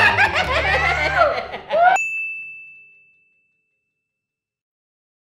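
Exaggerated wailing voices over background music, cut off about two seconds in by a single high ding sound effect that rings and fades over about a second.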